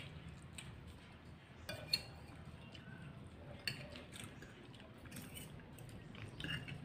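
Spoon and fork tapping and scraping lightly on a plate during eating, a few short clinks over a quiet background.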